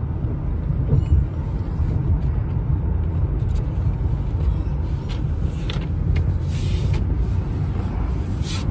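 Steady low rumble of a car heard from inside the cabin, with rustling of a denim jacket against the seat as someone turns around in it during the second half.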